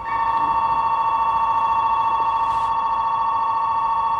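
Steady electronic two-tone buzzer or bell ringing for about four seconds, starting and stopping abruptly.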